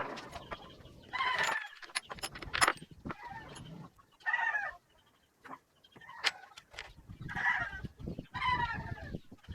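Chickens calling in about four short bursts, with scattered sharp clicks and knocks in between.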